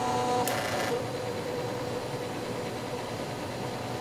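MakerBot Thing-O-Matic 3D printer at work laying down a print's base raft: its stepper motors whine in steady tones that stop less than a second in, after which a brief hiss gives way to a steady mechanical whir.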